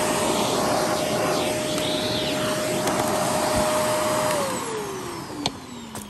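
Shark Navigator upright vacuum running with a steady whine and rush of air, its clog just cleared, then switched off about four seconds in, the motor winding down in a falling whine. A single click near the end.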